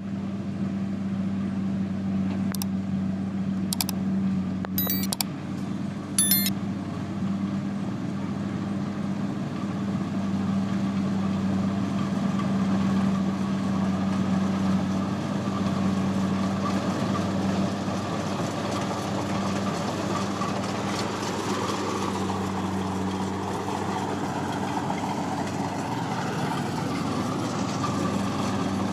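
Combine harvester engine running steadily, with a few short sharp clicks a few seconds in.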